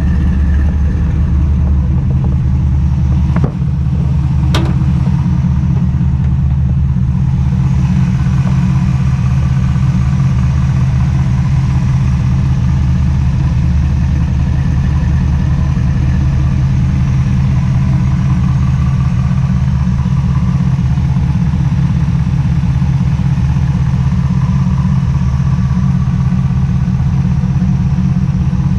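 Dodge Dakota R/T's 410 stroker V8 idling steadily as it warms up after a cold start. Two sharp clicks a second apart come a few seconds in.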